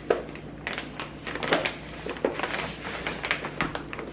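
Kitchen items being handled while a lunch is packed: irregular light clicks, knocks and rustles, about ten in all, over a low steady hum.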